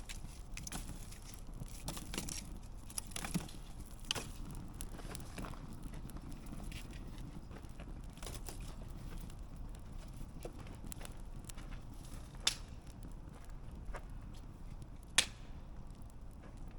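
Wood campfire crackling steadily over a low rumble of burning, with frequent small ticks and two sharp louder pops, about twelve and fifteen seconds in.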